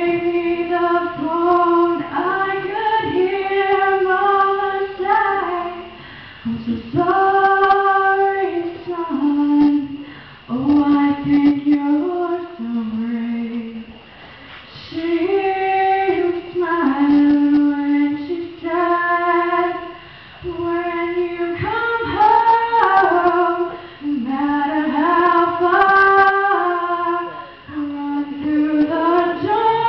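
A young woman singing solo into a handheld microphone, in phrases of held notes that glide between pitches, with short breaths between phrases.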